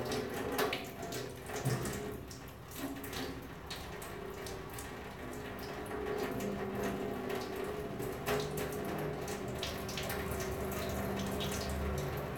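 Water running steadily from a kitchen tap and splashing into a sink or container, with a few light clicks and knocks.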